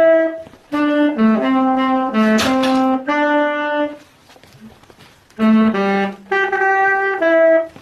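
Saxophone played in separate held notes, two short phrases with a quiet pause of about a second between them. It is the slow, halting playing of a beginner learning the instrument.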